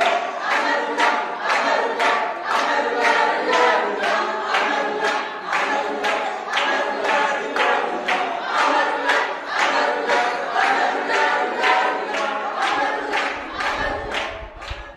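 A group of voices singing together a cappella in harmony, with hand claps keeping time about twice a second. The singing breaks off just before the end.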